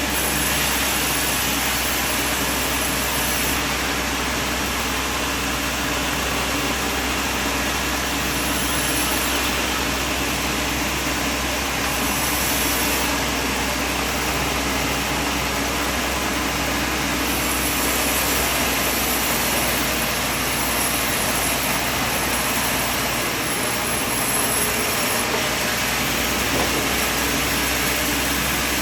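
Sawmill machine running steadily: a constant mechanical hum with a hiss over it, unchanging in level throughout.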